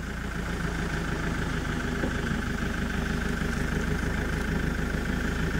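Safari game-drive vehicle's engine idling steadily.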